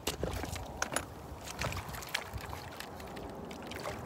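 River water running past a rocky bank, with a scatter of short clicks and knocks in the first couple of seconds.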